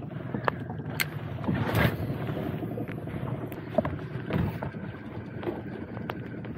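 Wind rushing over the microphone, with scattered light clicks and knocks as a spinning reel is cranked to retrieve a lure.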